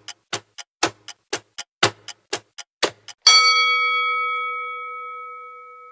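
Countdown-timer clock ticking about four times a second, alternating louder and softer ticks; a little over three seconds in the ticking stops and a single bell chime rings out and slowly fades, signalling the answer reveal.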